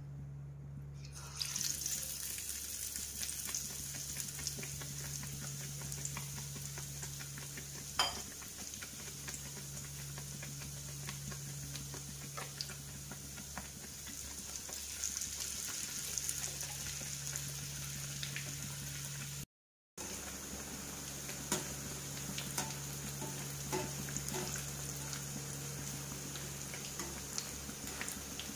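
Batter-coated pav slices deep-frying in hot oil in a kadhai: a steady sizzle that starts about a second in as the bread goes into the oil. A few sharp clicks of a utensil against the pan come through it.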